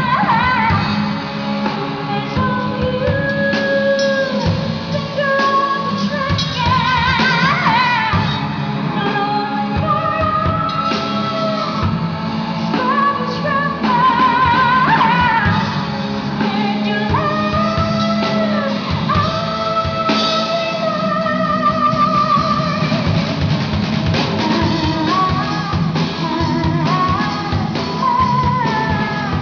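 A band playing a song: a singer holding long notes with a wide vibrato over guitar and drums.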